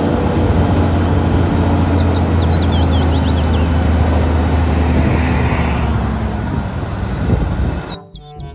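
Diesel engine of an eight-wheel tipper truck running steadily as its hydraulic ram raises the tipper body, cutting off abruptly near the end.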